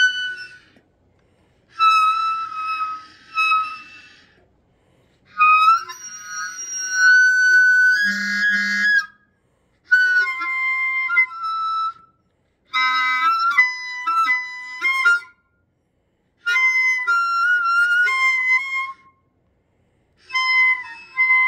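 Clarinet playing high, warbling phrases in a classical style, each two to four seconds long with pauses of about a second between them. There is a brief low buzz about eight seconds in.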